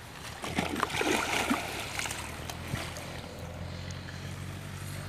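Water splashing and sloshing as a landing net holding a caught fish is lifted out of the pond, busiest in the first couple of seconds, then settling to a low steady hum.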